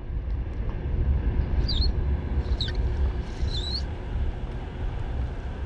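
Wind buffeting the microphone as a low, steady rumble. Over it come three short, high, falling chirps from a small bird, about a second apart, near the middle.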